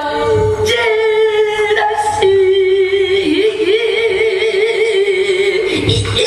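Female pansori singer holding one long note with a wavering, shaking pitch that steps down about two seconds in, over a few low strokes of the buk barrel drum.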